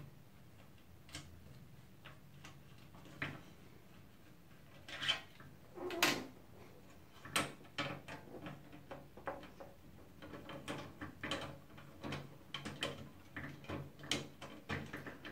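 Scattered clicks and knocks of a screwdriver and of plastic and metal computer-case parts being handled, with a few louder knocks around the middle and a run of light, rapid ticks near the end.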